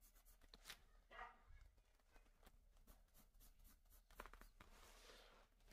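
Faint scratching of a Staedtler Mars Lumograph 8B graphite pencil shading on paper, in near silence.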